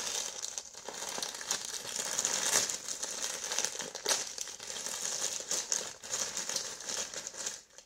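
Plastic poly mailer bag crinkling and rustling in the hands as it is worked and pulled open, with irregular sharp crackles.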